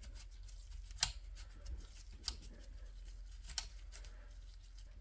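Three light, sharp clicks, a little over a second apart, from hands working on an old radio chassis, over a steady low hum.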